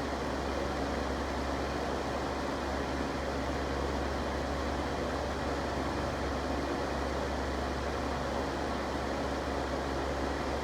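Electric fan running steadily: an even rush of air over a constant low hum, with no change in speed.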